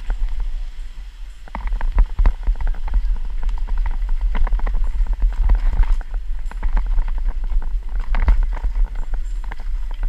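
Downhill mountain bike clattering over rocks and roots at speed: irregular sharp knocks and rattles from the tyres, chain and frame over a steady low rumble, easing briefly about a second in.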